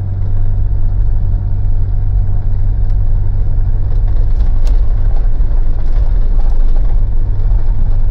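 Mitsubishi Pajero's 4M41 diesel engine running steadily under way, a constant low rumble mixed with road noise. The engine is running normally, with no sign of the stalling it had suffered.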